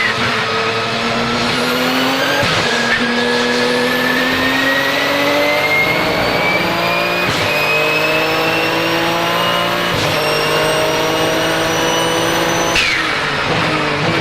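Twin-turbocharged 3.9-litre flat-six of a Porsche 997 GT2 RSR accelerating hard, its pitch climbing through three quick upshifts of the sequential gearbox, with a high turbo whistle rising above the engine note. Near the end the throttle closes and the engine note drops away.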